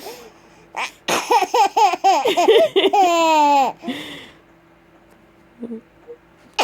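Baby laughing in a run of quick high-pitched giggles that ends on one long falling note, followed by a short breath and then quiet.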